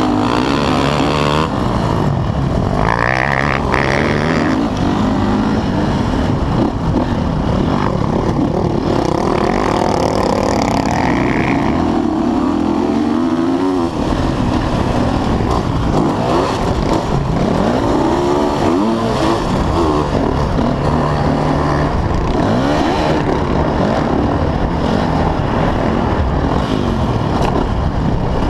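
Dirt bike engine heard close up, revving hard and shifting up through the gears, its pitch climbing and dropping with each shift, with other motocross bikes running close by.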